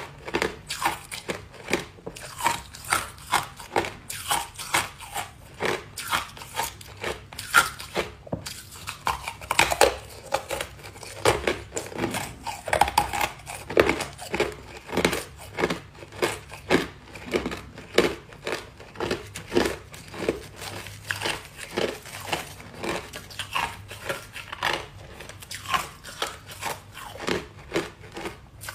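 Ice being chewed and crunched between the teeth, a steady series of crisp crunches about two a second, with the crinkle of a plastic bag as pieces of ice are picked from it.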